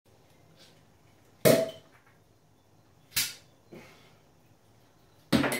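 Crown caps being pried off glass beer bottles with bottle openers: three sharp pops about two seconds apart, the first the loudest, with a fainter click between the second and third.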